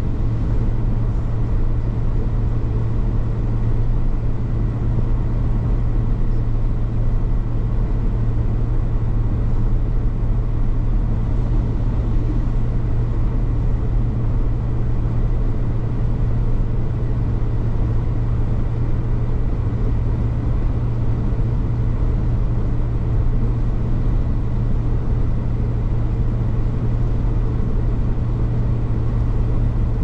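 Steady road and engine noise heard from inside a car's cabin while driving at highway speed on a wet, slushy road, with a constant low hum underneath.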